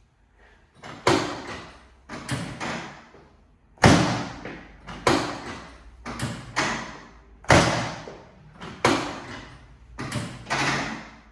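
About ten sharp thumps, roughly one a second, each dying away over about half a second: chiropractic adjusting thrusts on the treatment table.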